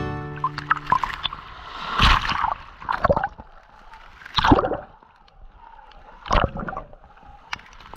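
Shallow seawater splashing and sloshing in several separate surges, a second or two apart.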